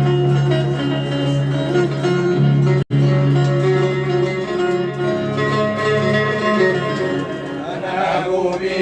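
Music played on plucked string instruments over a steady low drone, with a very short dropout just before three seconds in. A singing voice begins to come in near the end.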